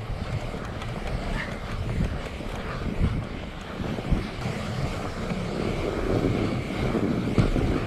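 Steady rustling rumble of a fat-tyre bike rolling through snow while towing a plastic sled, with wind buffeting the microphone; the noise turns grainier about five seconds in.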